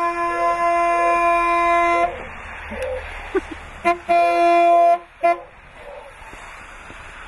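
Truck horn held in one long steady blast for about two seconds, then a short tap, a second honk of nearly a second and another short tap around four to five seconds in, set off by a dog leaning on it. A dog barks at the horn about twice a second through and after the honking.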